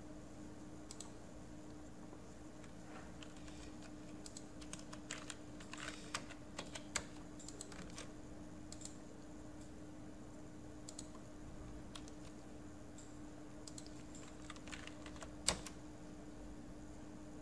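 Computer keyboard keys and mouse buttons clicking in scattered bursts, strongest about five to seven seconds in and again near fifteen seconds, over a faint steady hum.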